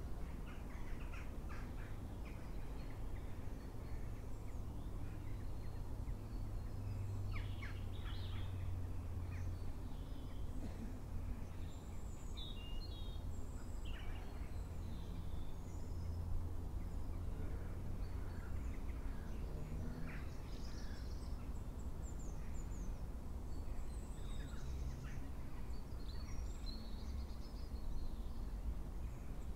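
Wild birds calling and chirping, many short scattered calls, over a steady low rumble.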